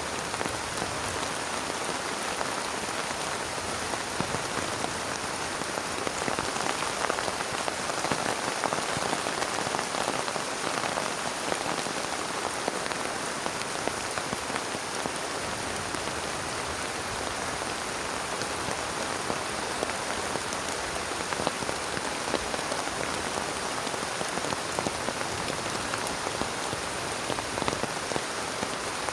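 Heavy rain falling steadily, a dense, even hiss of drops hitting a surface.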